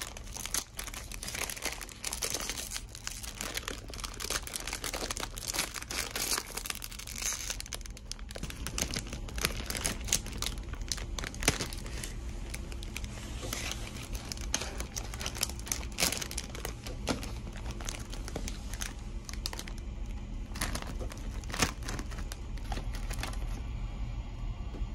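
Plastic snack bag crinkling and crackling as it is torn open and handled, with dense crisp rustles that thin out near the end.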